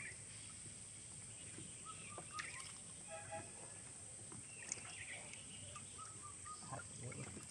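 Faint riverside ambience: birds chirping now and then over a steady high hiss, with a few small clicks.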